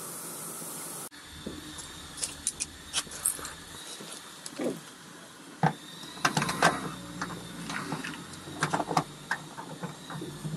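A steady hiss cuts off about a second in. Then come irregular sharp metal clicks and clinks from a multi-hook dent puller as its hooks are fitted onto wavy wire welded to a dented door panel. The clicks come thicker and louder in the second half.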